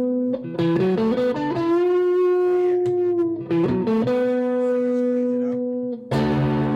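Electric guitar with GFS pickups in single-coil mode, played through an amp: a slow lead line of quick note changes and long sustained notes, with a chord struck about six seconds in.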